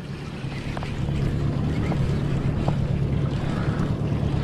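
Outboard motor running steadily at slow trolling speed, a low even hum under water and wind noise; it grows a little louder about a second in.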